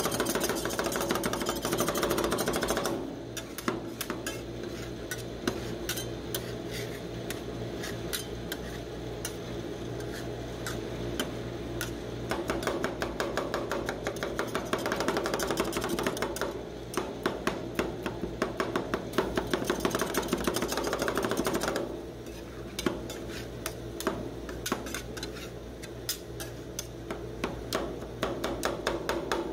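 Two metal spatulas chopping and scraping Flamin' Hot Cheetos popcorn into rolled-ice-cream base on a frozen steel cold plate: rapid clicking blade strikes on the steel, in spells of faster, louder chopping with lighter scraping between. A steady low hum runs underneath.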